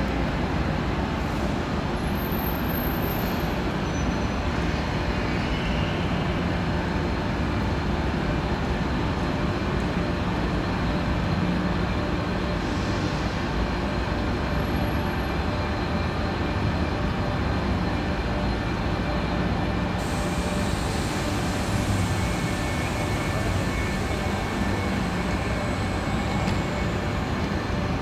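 Steady hum and rumble of a large railway station hall where electric high-speed trains stand at the platforms, with no distinct events.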